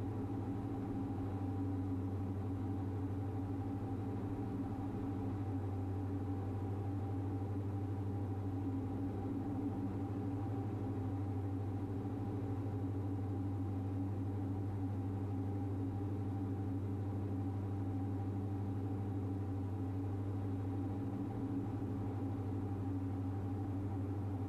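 Twin-engine Diamond DA42's engines and propellers droning steadily, heard from inside the cockpit: a constant low hum with several held tones above it.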